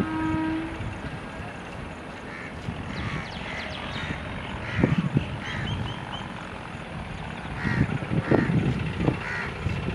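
A train horn cuts off within the first second. Then a train runs on the rails with a steady rumble and irregular heavy wheel thumps, while a bird calls repeatedly.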